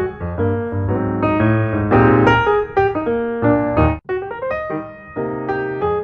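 Piano music, a steady run of single notes and chords, with a sudden brief break about four seconds in before it carries on.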